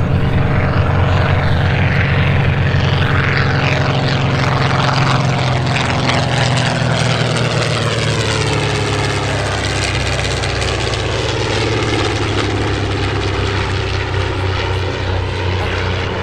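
Piston-engined propeller aircraft flying past. Its engine note falls in pitch about halfway through as it goes by.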